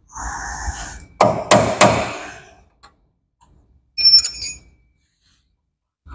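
A steel hammer striking a chisel set against a worn split bronze bushing in a forklift mast mount, to fold it in and peel it out. A short scrape comes first, then a few sharp metal blows about a second in, and a brief ringing metallic clink near four seconds.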